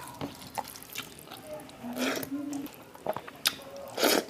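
Fingers squeezing and mixing rice with egg curry in a steel plate, making wet squelches and small clicks, then a handful eaten with a wet smack near the end.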